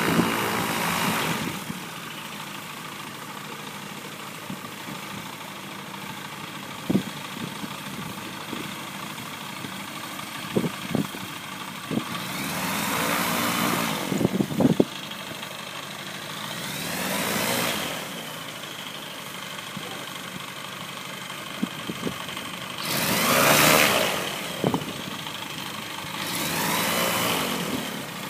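VPM M16 gyroplane's engine and pusher propeller idling as the aircraft taxis, with four bursts of throttle that swell up and fade away, each lasting a second or two. A few sharp clicks sound in between.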